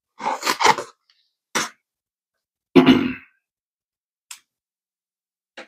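A folding knife slicing through the sealed flap of a cardboard toy box, and the flap tearing open: a few short scraping rips in the first second or so, one louder tear near the middle, then a faint tick.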